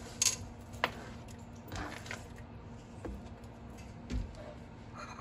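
Chopped onion being scraped by hand off a plastic cutting board into a pot of broth: a few light clicks in the first second, soft scraping, and a dull knock about four seconds in.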